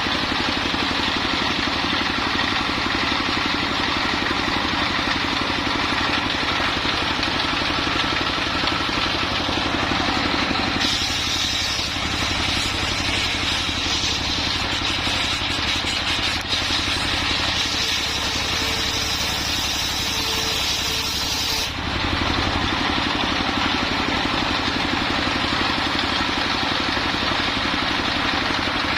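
Engine of a mobile circular sawmill running steadily. For about ten seconds in the middle a bright hissing layer joins it, starting and stopping abruptly.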